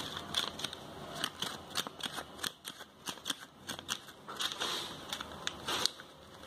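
Paper fortune teller folded from lined notebook paper, worked open and shut with the fingers: quick, irregular crinkling and clicking of the folded paper.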